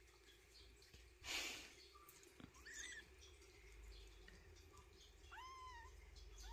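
Faint, high mews of young kittens: a small chirp about three seconds in and a longer mew that rises and then holds near the end, with a short rustle about a second in.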